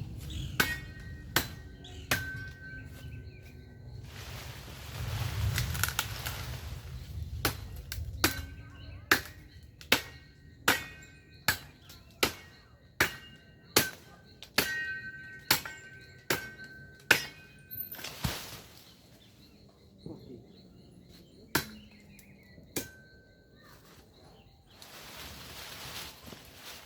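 Branches of a mango tree being chopped with a hand-held blade: a run of about fourteen sharp, even blows, a little over one a second, from about a third of the way in, with a few scattered blows before and after.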